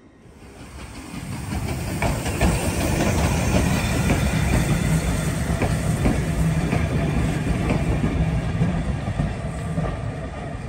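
A heritage steam train, a small tank locomotive hauling a vintage wooden-bodied carriage, running past. Its wheels rumble and clack over the rail joints with some steam hiss. The sound fades in over the first couple of seconds, then holds steady.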